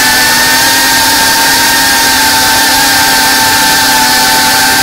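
FPV drone's electric motors and propellers whining at a nearly steady pitch over a strong rushing hiss.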